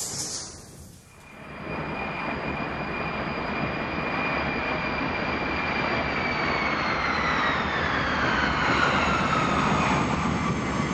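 Jet aircraft passing: a steady rush of engine noise that builds in the first two seconds, with a high turbine whine that glides down in pitch over the second half as the aircraft goes by.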